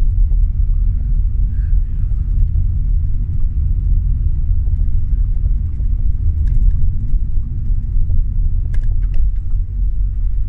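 Steady low rumble of a car's engine and tyres, heard from inside the cabin as it drives along a street.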